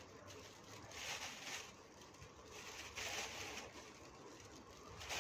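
A few faint, soft rustles as marigold flowers are set down one by one on betel leaves, over quiet room tone.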